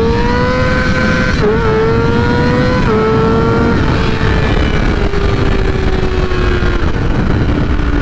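2009 Kawasaki ZX-6R's inline-four engine revved high under hard acceleration, its pitch climbing and then holding near the top of the rev range. The note dips briefly twice, about a second and a half and three seconds in, then slowly falls as the revs come down.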